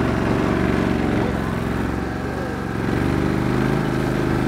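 Small engine running steadily under way, its pitch wavering slightly near the middle.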